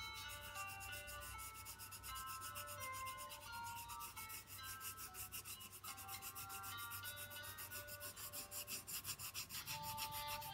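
Colored pencil scratching on paper in quick, regular back-and-forth shading strokes, filling in an area. A soft background melody of short notes plays underneath.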